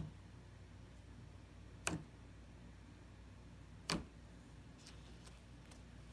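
Slime being handled, giving three sharp clicks about two seconds apart and a few fainter clicks near the end, over a low steady hum.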